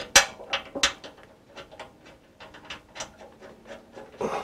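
Irregular light metallic clicks and taps from hand-fitting a gear-train bearing housing into a metal shaper's cast body and starting its screws. There are two sharper clicks in the first second, then softer ticks every half second or so.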